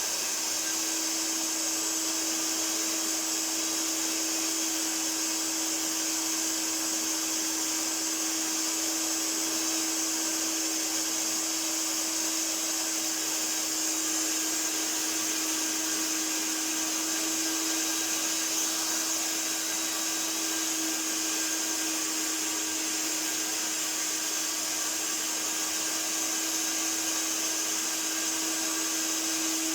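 1982 Hoover Wet and Dry Powervac S4266 tub vacuum cleaner running loud and steady: an even motor hum under a strong high hiss of rushing air.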